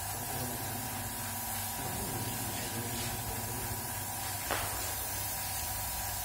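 Compressed-air spray gun hissing steadily as it sprays paint, over a steady low hum. A short click about four and a half seconds in.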